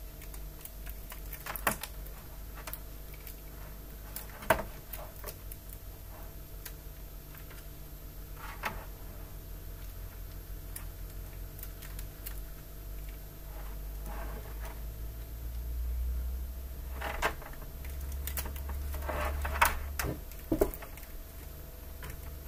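Scattered computer-keyboard keystrokes and clicks, a few at a time with gaps of several seconds, over a steady low hum.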